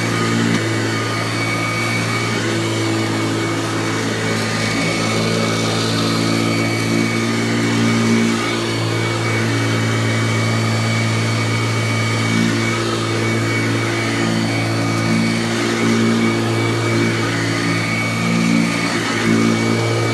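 Kirby Classic III upright vacuum cleaner running steadily with its brush roll agitating: a constant motor hum with small rises and falls in level.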